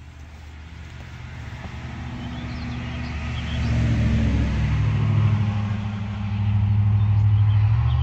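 A motor vehicle's engine grows louder over the first few seconds, then runs loud and steady, its pitch shifting in a few steps. Faint bird chirps are heard.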